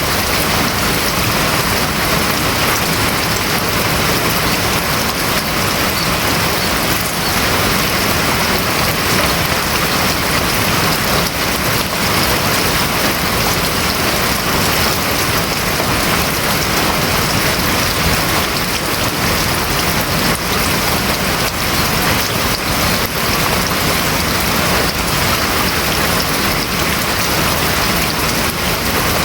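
Heavy rain drumming steadily on a house roof, a dense, even hiss of many drops with no let-up.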